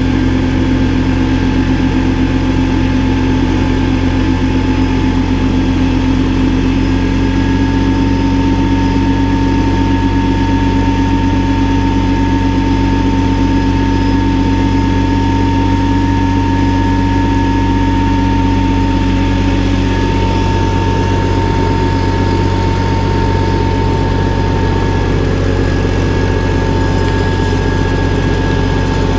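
Valtra BF-75 tractor's diesel engine running steadily at a constant speed.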